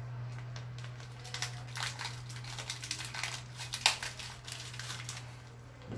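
Rustling and crinkling as the fabric and pocket contents of a Naked running vest are handled, with irregular soft clicks and scrapes, over a steady low hum.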